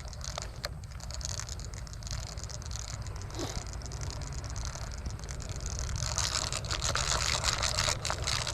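Outdoor wind rumble on the microphone, with rustling and rapid clicking that grow louder over the last couple of seconds.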